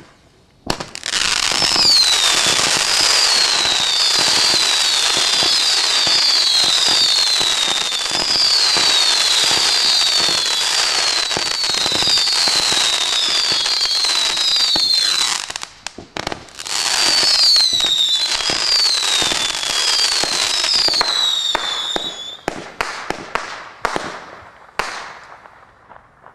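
Screaming Demons, a 200-shot round firework cake, firing rapidly: a constant crackle and hiss of shots with repeated falling screams, a short break about two-thirds of the way through, then a final run of separate bangs that thins out and stops.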